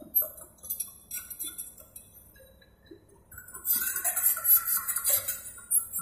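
Sparse bell-like chimes and light metallic tinkles from background music, with no engine sound.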